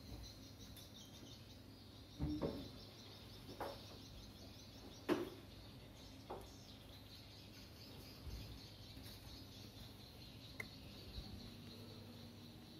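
A few scattered knocks and thumps as a computer monitor is handled and set up on a desk, the loudest about five seconds in.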